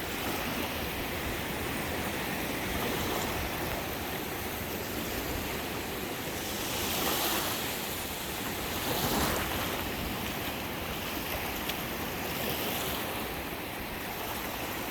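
Gulf of Mexico surf washing up the beach, a steady rush with two stronger swells of wave wash about seven and nine seconds in.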